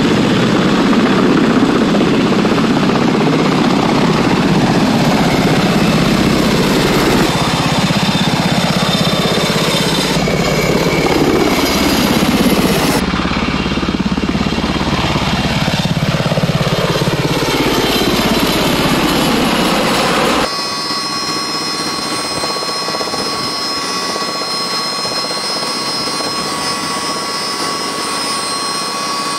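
Several tandem-rotor CH-47 Chinook helicopters flying low overhead with sling loads: loud rotor and turbine noise, its pitch sliding up and down as they pass. About two-thirds of the way through it cuts abruptly to a quieter, steady machine hum with high whining tones.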